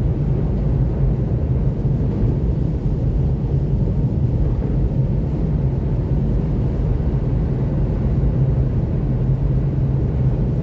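Steady low rumble of a Seat Mii electric cruising on a snow-covered highway at about 90 km/h: road and tyre noise from its Nokian R5 winter tyres running through snow, with no engine note.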